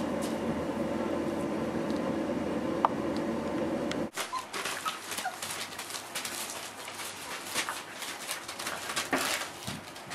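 A steady hum for the first four seconds. Then a litter of four-week-old Boerboel puppies eating together from a shared dish: quick lapping and chewing clicks with paws on newspaper, and a few small squeaks.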